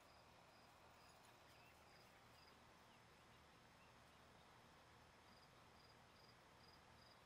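Near silence with a faint cricket chirping: short, regular high chirps about two or three a second, which stop partway through and start again near the end.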